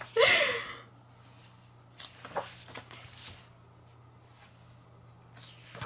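A short breathy voice sound with falling pitch at the start, then faint rustling and light taps of photobook pages being handled and turned.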